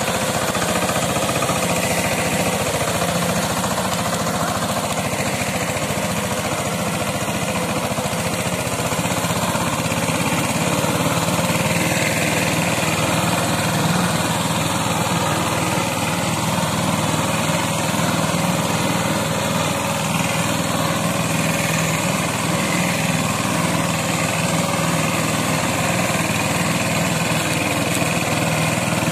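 Eicher 188 mini tractor's 18 HP single-cylinder diesel engine running steadily as it pulls a loaded trolley.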